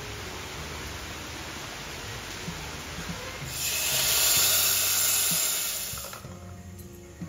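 Steady rain, then about three and a half seconds in a loud sizzle that lasts some two and a half seconds as hot oil tempering with fried seeds is poured into cooked tomato pulp for tomato pickle.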